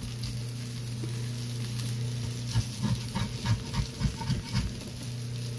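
Potato pancakes frying in a metal pan, with a utensil clicking and scraping against the pan in a run of light knocks from about halfway through as they are turned. A steady low hum sits underneath.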